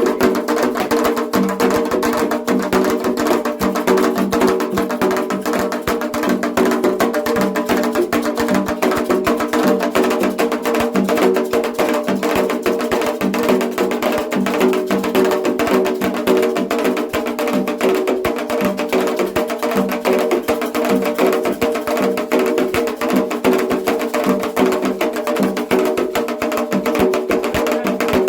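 Candomblé drumming for Xangô: atabaque hand drums with a sharp, wood-block-like timekeeper beating a fast, steady rhythm over sustained musical tones.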